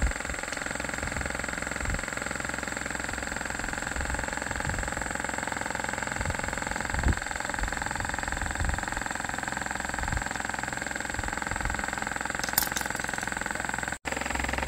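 A motor running steadily: a constant hum with a high whine above it. Scattered low knocks, and a brief high rattle near the end.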